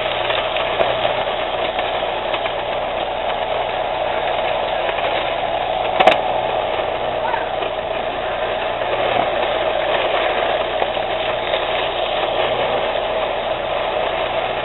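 Toy electric train locomotive running along its track, with a steady motor hum and wheel rumble. A single sharp click comes about six seconds in.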